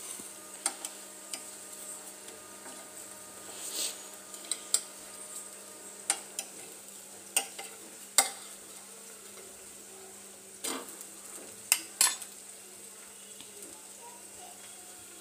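Multigrain dosa batter sizzling on a hot nonstick pan as it is spread into a round, with about ten sharp scrapes and taps against the pan over the first twelve seconds; after that only the steady sizzle goes on.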